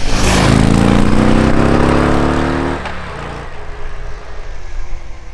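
Harley-Davidson Road King Special's V-twin, on its standard exhaust, accelerating hard: a deep engine note rising in pitch for about two and a half seconds, then dropping off to a quieter run.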